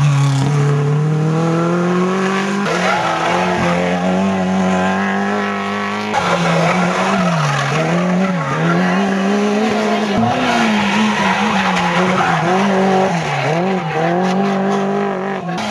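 Rally cars driven hard through a tight bend one after another, first a Simca 1000, their engines revving and climbing in pitch under acceleration, then rising and dipping as the drivers work the throttle, with tyre squeal.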